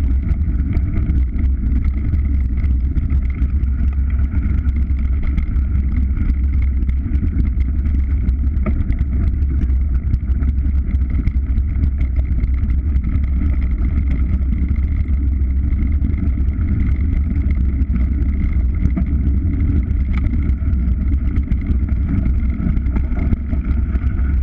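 A moving vehicle running steadily: an even low rumble with a faint steady hum above it, unchanging throughout.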